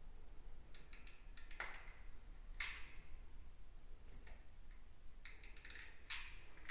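Hand work on a heat detector being swapped out: short clicks and scrapes of the detector and its fittings being handled, in small clusters, the sharpest about two and a half seconds in and again near the end.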